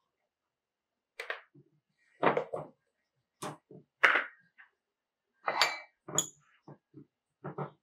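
A string of irregular short knocks and clinks, about a dozen, of objects being handled and set down.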